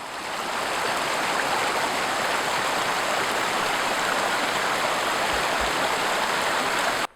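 Steady rushing water, swelling in over the first second and cutting off suddenly near the end.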